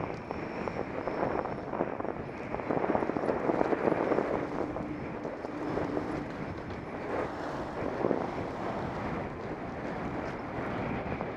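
Wind rushing over a bike-mounted camera microphone as the bicycle rides along, with road and traffic noise mixed in. A faint steady engine hum comes in for a couple of seconds around the middle.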